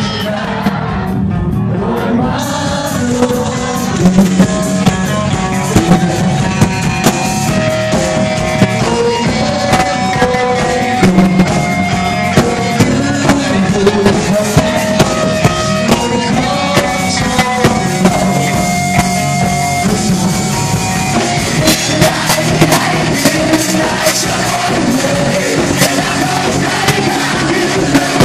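Live rock music: a band with a singer and drum kit playing a song.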